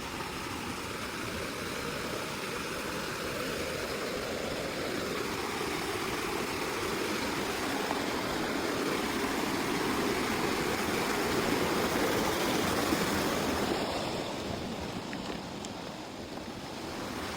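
Steady rushing water of a small mountain stream. It swells slightly about two-thirds of the way through, then eases off.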